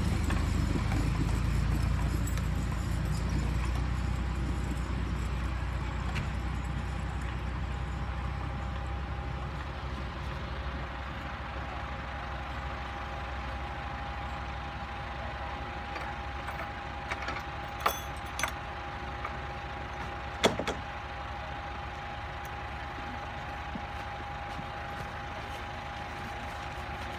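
Tractor engine running at idle with a steady thin whine, its low rumble easing off over the first several seconds as the tractor and wagon come to rest. Two sharp metal clanks ring out, the second about two and a half seconds after the first, as the wagon's rear gate is opened.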